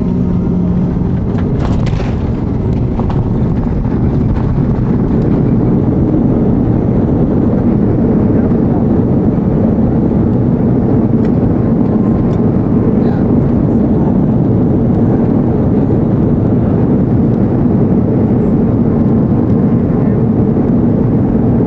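Steady engine and airflow roar heard inside the cabin of an Airbus A340 during its landing, growing slightly louder about four seconds in.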